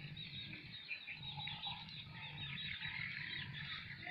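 Dense outdoor chorus of many small chirping animal calls, short high chirps overlapping without a break, over a low steady hum.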